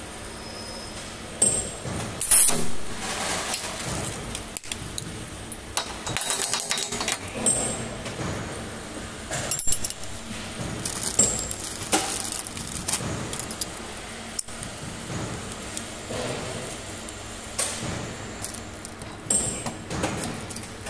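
Metallic clinking and rattling of steel weld studs and ceramic ferrules around a stud welding gun on a steel plate. Several sharp metallic knocks come through it, the loudest a short crack with a brief tail about two and a half seconds in.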